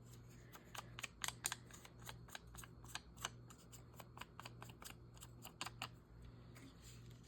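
Small scissors snipping paper, a faint irregular run of short clicks, several a second, as a magazine cut-out is trimmed.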